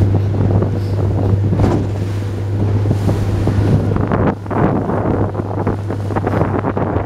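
Small motorboat under way in a choppy sea: its engine running with a steady low drone, under wind buffeting the microphone and waves splashing against the hull, the splashing coming in irregular surges from the middle on.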